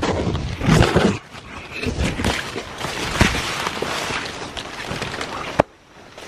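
Footsteps in rubber boots on a wet, muddy trail, with leaves and palm fronds brushing past, uneven and loud; a sharp click a little before the end, after which it goes quieter.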